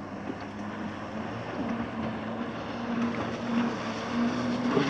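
Steady engine drone from a motorised watercraft, holding one pitch and growing slowly louder, over wind and water noise.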